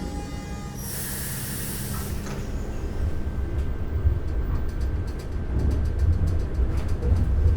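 Transit train with a burst of air-brake hiss about a second in, followed by a low rail rumble with rapid clicking.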